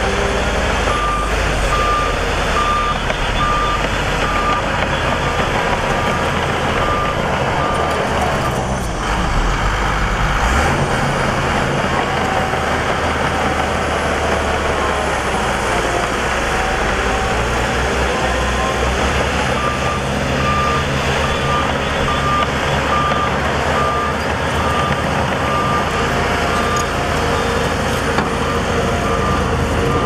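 Diesel dump truck engines running steadily as the trucks tip soil, with a truck's reversing alarm beeping at an even pace for the first several seconds and again through the last ten.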